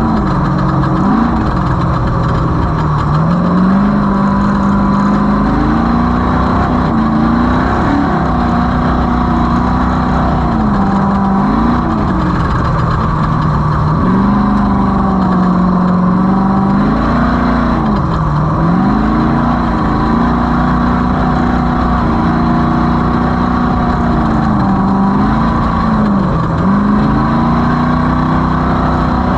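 Off-road race vehicle's engine running hard at speed, its pitch holding steady for a few seconds, then dropping and climbing back several times as the throttle is lifted and reapplied, over a constant low rumble.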